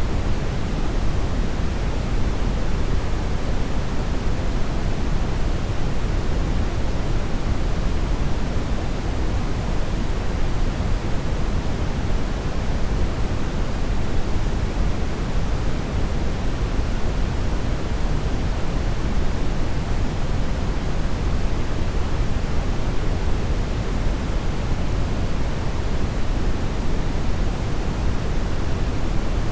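Continuous synthetic brown noise: a steady, unbroken hiss weighted heavily toward the deep end, used as a tinnitus-masking sound.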